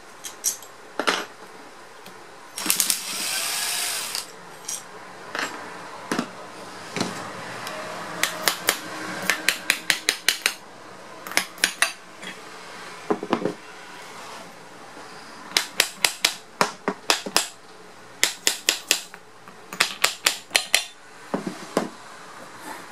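A cordless Ryobi driver runs briefly, unscrewing the end-cover bolts of a water-pump electric motor. Then a hammer taps the motor's end cover in several quick runs of sharp knocks, about four a second, to loosen the cover from the housing.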